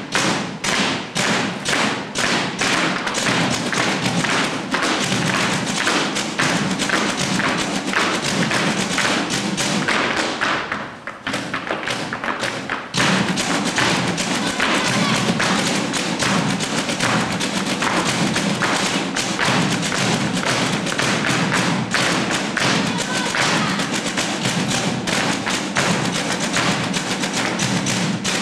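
Flamenco dancer's zapateado: shoes stamping heel and toe on a stage floor in quick, dense strikes, with flamenco music behind. The stamping eases for about two seconds near the middle, then resumes.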